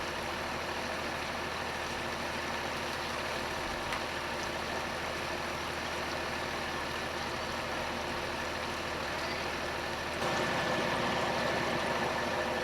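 Engine of heavy lifting machinery running steadily, with a thin high whine over it. About ten seconds in it grows louder and harsher, as when the engine takes up load.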